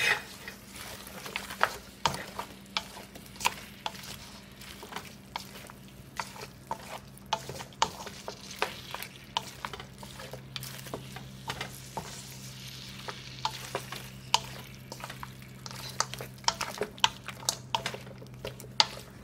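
Wooden spatula stirring a thick chicken and vegetable mixture in a nonstick wok, with irregular clicks and knocks of the spatula against the pan over a soft frying sizzle. A faint steady low hum runs underneath.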